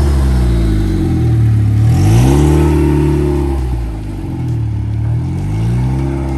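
DF Goblin kit car's Cobalt SS-sourced four-cylinder engine pulling away, its note climbing sharply about two seconds in, holding, dropping back, then climbing again near the end.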